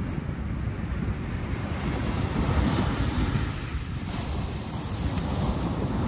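Small sea waves breaking and washing up a pebble beach, over a steady low rumble of surf. The hiss of the wash swells about halfway through and again near the end.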